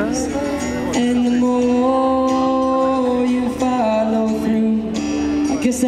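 Live performance: a man singing with an acoustic guitar, including one long held note through the middle.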